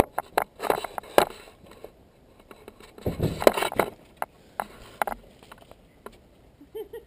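Handling noise from a small action camera on the ground: knocks and clicks, then a louder rushing scrape about three seconds in as the camera is tilted and turned.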